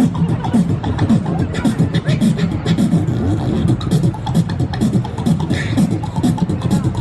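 Vocal performance with many quick percussive clicks over a low voice that bends up and down in pitch, running without a break.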